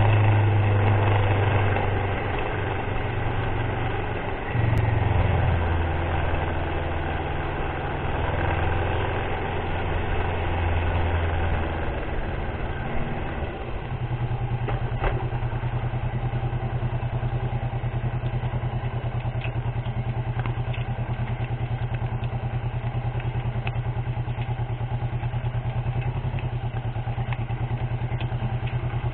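Motorcycle engine running on a ride along a wet road, its pitch shifting with the throttle during the first half. About halfway through it settles into a steady, evenly pulsing low beat. A steady hiss runs underneath.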